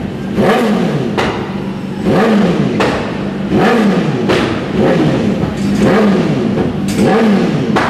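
Racing motorcycles going past one after another at speed, each engine note swooping in pitch as it passes, about eight in quick succession.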